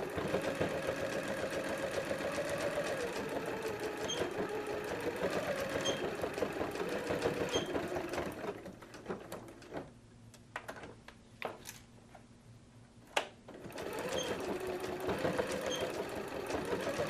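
Sewing machine stitching Velcro onto fabric, its running speed rising and falling as it back stitches. About eight seconds in it stops for roughly five seconds, with a few sharp clicks in the pause, then starts stitching again.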